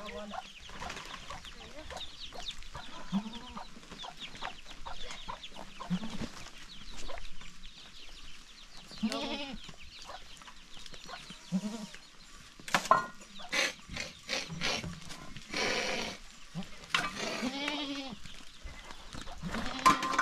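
Goats bleating, a string of short calls, some longer and louder in the second half, with hens clucking among them.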